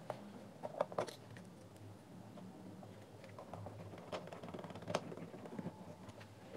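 Small screwdriver and screws clicking and scraping against the plastic housing of a JBL Clip 2 speaker as the driver's screws are driven in. There are sharp clicks about a second in and again around four to five seconds, with lighter ticks between, over a faint steady hum.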